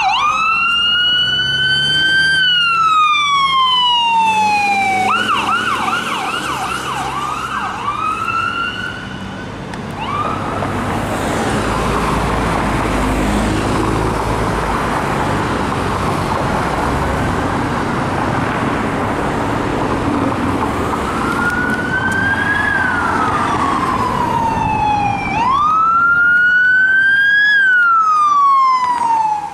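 Emergency vehicle siren wailing in slow sweeps, each a quick rise and a long fall, switching for a few seconds to a fast yelp. For about ten seconds in the middle a loud rushing noise covers it, then the wail returns.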